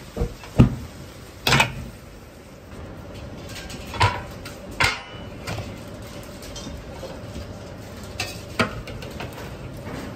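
Metal kitchenware clanking as a wok and ladle are handled: a few sharp separate clanks, the loudest about four and five seconds in, over steady kitchen noise.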